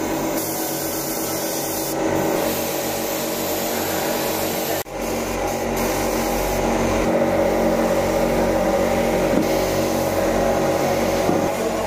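Steady hiss of airbrush spray guns with the hum of their air compressor running, broken by a sudden break about five seconds in.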